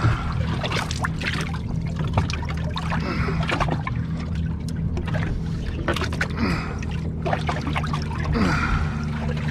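Honda 225 V6 four-stroke outboard idling with a steady low hum, while water sloshes and trickles at the stern. Scattered small clicks and knocks come through as line and fish are handled beside the motor.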